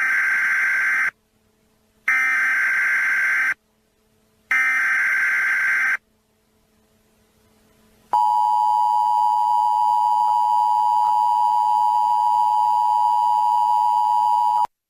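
Emergency Alert System header: three short bursts of raspy digital data screech, followed a couple of seconds later by the two-tone attention signal (853 and 960 Hz together). The attention signal is held steady for about six and a half seconds and then cuts off abruptly.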